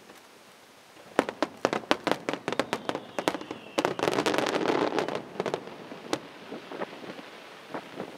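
Fireworks display. About a second in, a rapid run of sharp bangs from bursting aerial shells begins. It builds to a dense, continuous burst of bangs and crackle around the middle, then thins out to a few scattered bangs.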